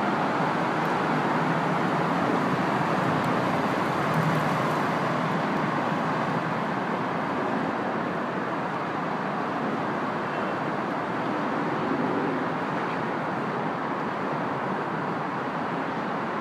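Steady wash of road traffic noise, an even rushing hum with no single vehicle standing out, a little louder in the first few seconds.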